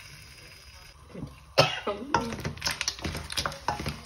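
Spatula scraping and knocking against a wok, stir-frying shrimp, squid and clams: a quieter start, then a sharp sound about a second and a half in and a run of quick repeated strokes.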